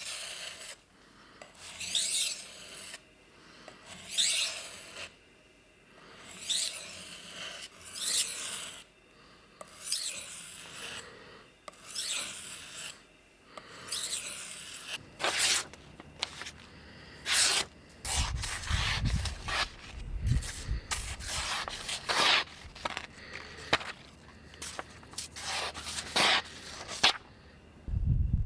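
Repeated rubbing strokes, about one every two seconds at first, then quicker and shorter strokes, with a low rumble underneath from about two-thirds through.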